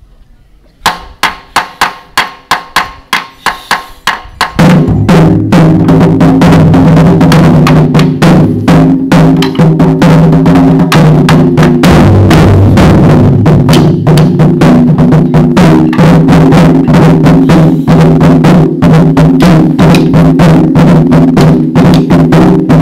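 Japanese taiko drums: a run of single sharp strikes, about three a second, then about four and a half seconds in the ensemble breaks into loud, fast, continuous drumming that keeps going.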